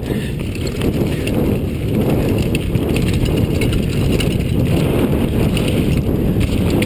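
Mountain bike rolling fast over rough dirt singletrack: a steady loud rumble of tyres on the trail, with light rattling from the bike.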